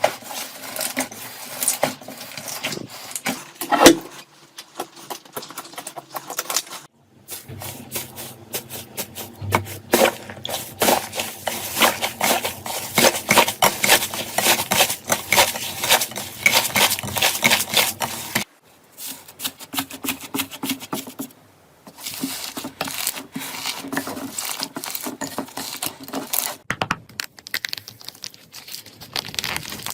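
Slime being squeezed, poked and stretched by hands, making dense runs of sticky popping and crackling. Several clips follow one another, with brief gaps at the cuts.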